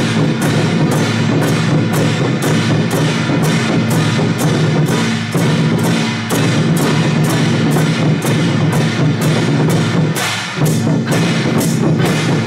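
Madou-style drum troupe playing: large slung double-headed barrel drums and hand cymbals beat a steady, loud marching rhythm of about three strikes a second.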